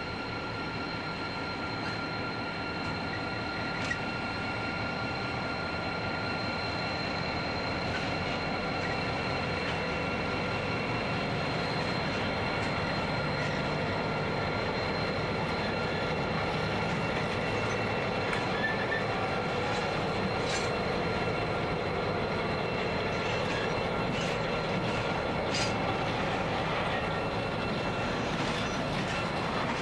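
Two Pacific National 81 class diesel-electric locomotives, each with an EMD two-stroke V16 engine, run past, followed by empty steel grain hopper wagons rolling by. A steady high-pitched squeal runs over the rumble, and the wagons give a few clanks in the second half.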